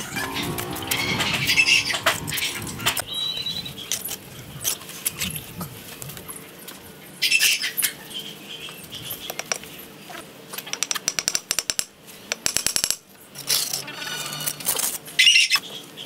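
Steel brick trowel scraping mortar and knocking on clay bricks while a course is laid, with bursts of quick taps in the second half.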